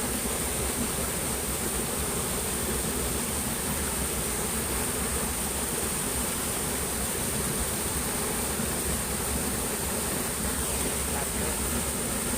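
Steady rushing of flowing stream water, with a continuous high-pitched insect drone over it.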